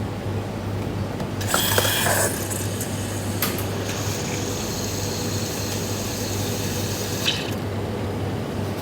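A steady rushing hiss with a thin high whine on top, starting about one and a half seconds in and cutting off about seven seconds in, over a low steady hum.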